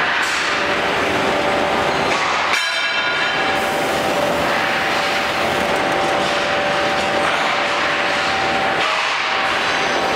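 Steady machine noise of a CNC angle punching line running, with a constant whine held under it and one short, sharper sound about two and a half seconds in.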